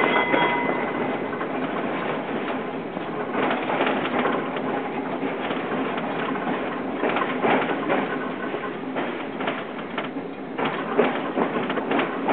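Old tram running on street rails, its wheels and car body clattering with irregular clicks and knocks. A rapidly struck bell rings at the start and dies away within the first second.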